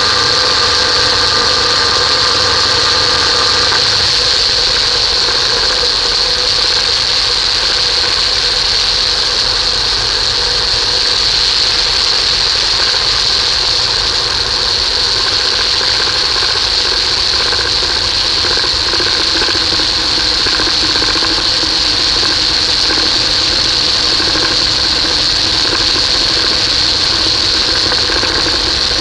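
Steady rush of wind and engine noise in a flex-wing microlight gliding down with its engine throttled back for a simulated engine failure. A faint hum fades a few seconds in, and a lower hum comes in later.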